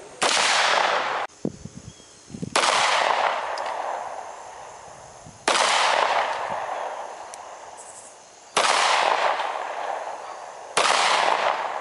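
A single AR-15-style rifle shot, cut off short, followed by four handgun shots fired slowly, about three seconds apart, each with a long fading echo.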